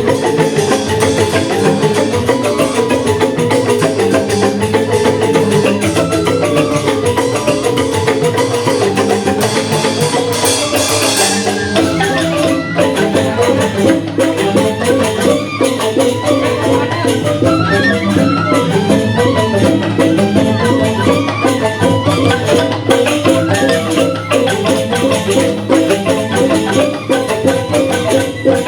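Balinese joged bumbung ensemble playing, its bamboo xylophones struck with mallets in a fast, dense stream of notes over percussion.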